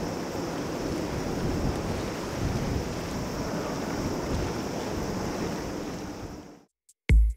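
Jet engine noise of an Airbus A350-900's Rolls-Royce Trent XWB engines as the airliner climbs away after takeoff: a steady, noisy rumble that fades and cuts off about six and a half seconds in. A drum-machine beat starts just before the end.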